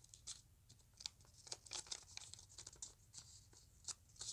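Faint crinkling of a sheet of origami paper being folded and pressed into creases by hand: a scatter of small, irregular crackles.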